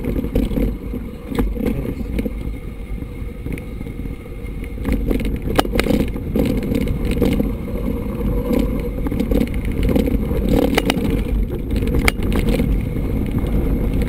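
Mountain bike rolling downhill on a dirt and gravel track, heard from the bike: a steady low rumble of tyres and wind on the microphone, with scattered sharp clicks and rattles from the bike over the bumps.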